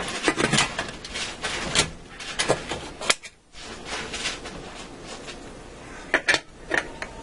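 Metal clanks and clicks of a stovetop pressure cooker being shut: the lid knocks as it is twisted and locked onto the pot by its handle. A quick cluster of clinks about six seconds in comes as the pressure regulator weight is set onto the vent pipe.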